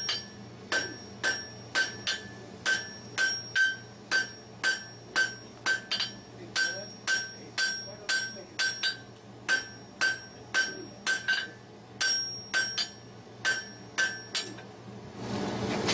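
Blacksmith's hand hammer striking hot steel on an anvil, about two ringing blows a second while forge-welding the joint and working its edges. The blows stop near the end.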